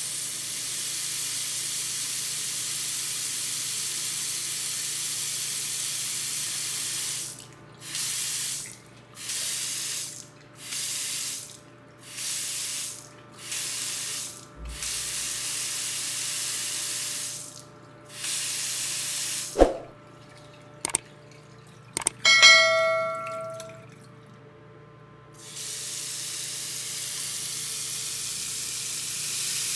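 Steady rushing water from a running tap, then a string of about ten short bursts of spraying water cut on and off. A few sharp clicks and a brief ringing ding follow, then the steady running water returns.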